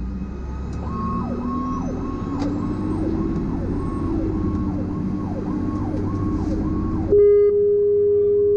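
Fire truck sirens on an emergency run: an electronic siren sweeping up and down about twice a second, over a lower siren tone that slowly rises and then holds, with the truck's engine rumbling underneath. About seven seconds in, a long steady horn blast cuts in over it, the loudest sound, lasting about a second and a half.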